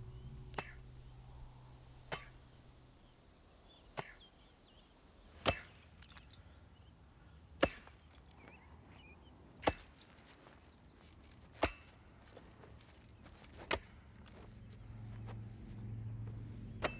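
An axe chopping into a tree stump, single strokes at an unhurried pace of about one every two seconds, nine in all.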